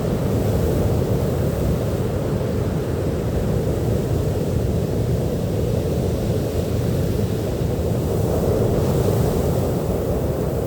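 Sea surf on a beach: a steady low rushing of waves with no breaks or single crashes.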